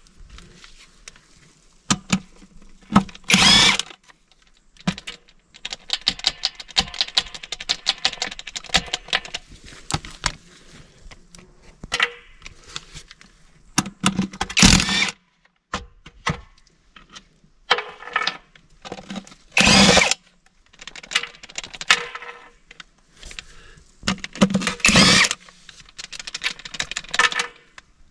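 A power tool running in short bursts, four times, between clinks and knocks of metal tools and parts. The bolts are coming out of an axle hub cover, opened to check a suspected broken drive flange after the rear axle failed under load.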